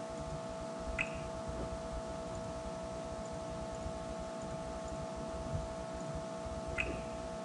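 Two short mouse-button clicks, about six seconds apart, over a steady electrical hum and faint hiss.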